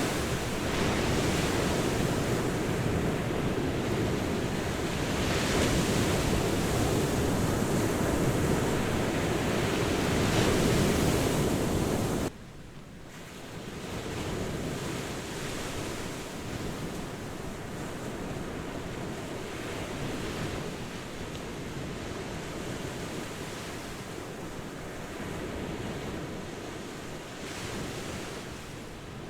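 Ocean surf washing onto a beach, a steady rush with wind on the microphone. About twelve seconds in it cuts suddenly to a quieter stretch of surf.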